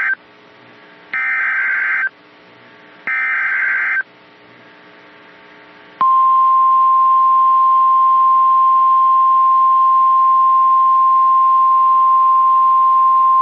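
Emergency Alert System SAME header on NOAA Weather Radio: harsh, buzzy digital data bursts about a second long, two of them a couple of seconds apart. About six seconds in, the steady single-pitch 1050 Hz warning alarm tone starts and holds, signalling that a new warning message follows.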